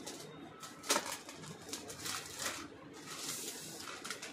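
Rustling and crinkling of laptop packaging as the laptop is handled in its protective sleeve over its cardboard box, with a sharp tap about a second in.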